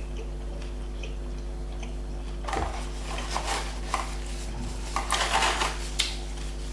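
Close-miked chewing and biting of a doner kebab: a few seconds in, clusters of short wet, crackly mouth noises start, with a few sharp clicks, busiest near the end. A steady low electrical hum runs underneath.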